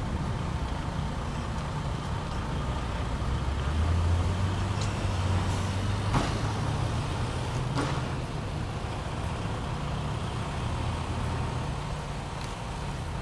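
Semi truck's diesel engine running at low speed as the truck creeps forward, a low steady rumble that swells about four seconds in. A short sharp click sounds about six seconds in.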